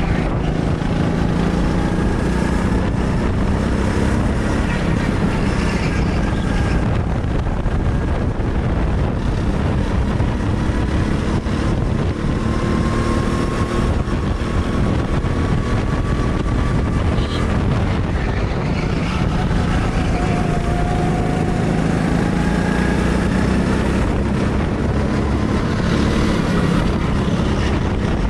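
Go-kart engine running under throttle, its pitch slowly rising and falling as the kart speeds up and slows through the corners, over a constant rush of wind on the microphone.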